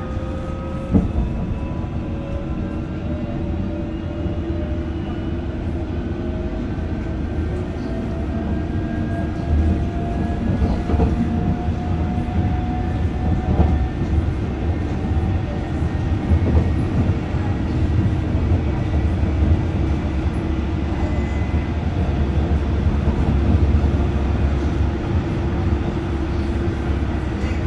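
A London Underground District line train heard from inside the carriage, running along the track with a steady rumble of wheels on rails. A thin motor whine rises slowly in pitch over the first half as the train gathers speed. A few sharp clicks from the wheels, the strongest about a second in.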